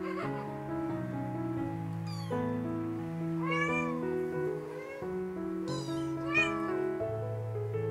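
Month-old Siamese kitten mewing for its mother: a few short, high mews, at about two, three and a half and six seconds in, over background music of slow piano-like notes.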